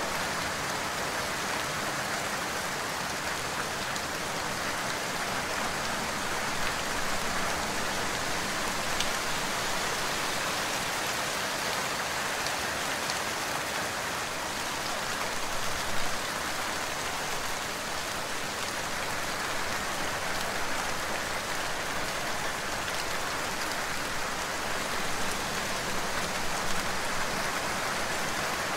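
Steady, even rain falling, with a few slightly louder spatters now and then.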